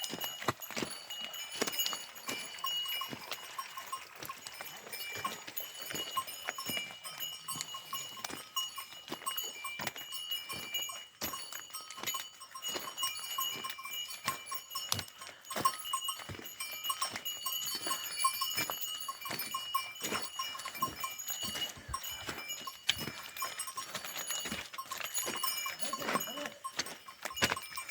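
Bells on a herd of grazing livestock ringing and clanking continuously as the animals walk, with many short knocks and clicks mixed in.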